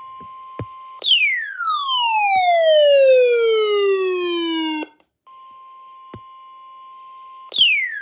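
Weather-alert alarm of a Midland ER310 radio receiving a NOAA Weather Radio warning: a loud electronic siren tone that falls steadily in pitch over about four seconds and cuts off, then starts falling again near the end. In between, a fainter steady warning tone holds one pitch.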